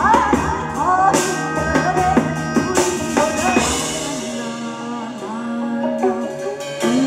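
A song with a singing voice over drums and guitar; the drums and bass drop away about four seconds in, leaving the voice over lighter accompaniment.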